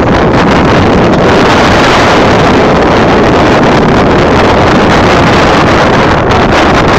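Wind blowing hard across the microphone: a loud, steady rushing noise.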